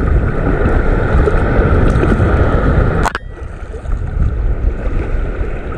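Wind buffeting the microphone over shallow sea water washing across a reef flat, a steady rushing noise heavy in the lows. About three seconds in there is one sharp click, after which the noise is a little quieter.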